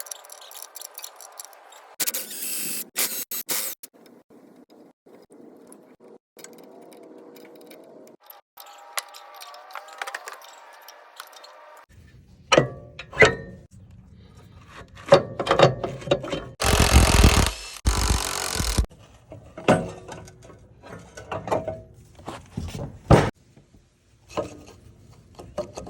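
Metal knocks and clanks from hand tools working on a Vermeer stump grinder's cutter wheel, with a hiss about two seconds in and a long, loud burst of tool noise about seventeen seconds in.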